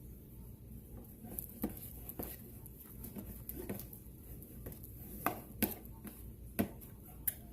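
A spoon stirring thickening slime in a bowl, with irregular light clicks and taps of the spoon against the bowl, several sharper ones in the second half.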